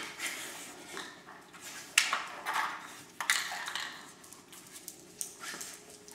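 Hard plastic dog treat puzzle toy clattering on a tile floor as an Irish terrier noses and paws at its sliding blocks. A few sharp knocks, the loudest right at the start and about two and three seconds in, with smaller rattles between.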